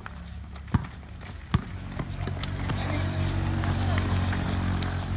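A basketball bouncing on a concrete court: two sharp thumps, about a second in and again under a second later. Beneath them runs a steady low motor-vehicle engine hum that grows louder in the second half.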